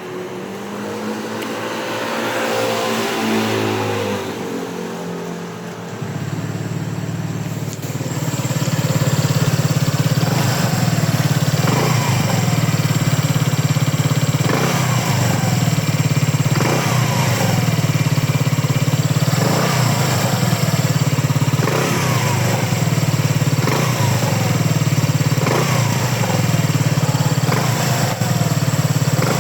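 Kymco RTS135 scooter engine revved up and back down in the first few seconds, then running steadily with a rattle recurring about every two seconds. The rattle is an abnormal noise from the loose, unfastened rear fender jumping. A replaced crankshaft and crankcase did not cure it.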